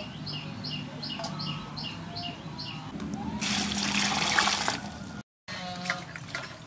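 Water poured from a bottle into a metal basin of vegetables, a splashing pour of about two seconds in the middle and the loudest sound. Before it, a bird repeats a short chirp about three times a second.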